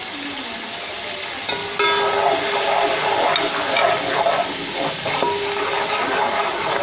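Ground red chilli and turmeric sizzling in hot oil in a metal pot, stirred with a metal spoon that scrapes the pot, adding ringing scraping tones from about two seconds in.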